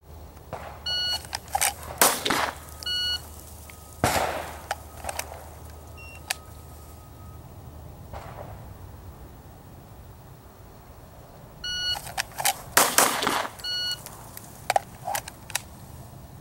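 Electronic shot timer beeps to start a string, a handgun fires quickly in the next second or so, and a second beep two seconds after the first ends the par time. The same beep, shots and beep sequence repeats about ten seconds later.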